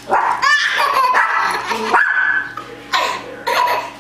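A small white dog barking several times in short bursts while it jumps about.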